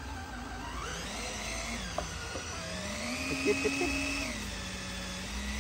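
Small electric lift motor of a toy RC dump truck whining as it tips the loaded bed up, its pitch dipping and rising as the load changes. A few light clicks come about three and a half seconds in.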